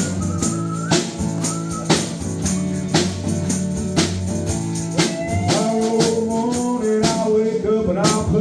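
Instrumental intro of a country-blues song: guitar over a steady percussion beat about once a second, with a melody line coming in about halfway through.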